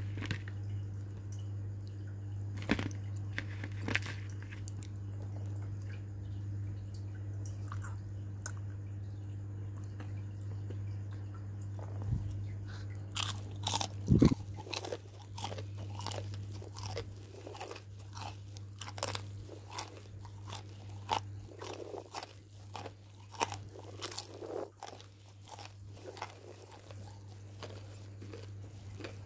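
Close-up crunching and chewing of crispy battered fried chicken, with a few sharp bites in the first half and denser crunching from about halfway on, over a steady low hum.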